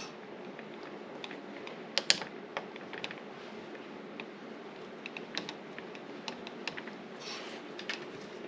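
Irregular small clicks and ticks of a Phillips screwdriver being turned by hand in a doorknob screw, metal tapping on metal, the sharpest about two seconds in, over a steady low hum.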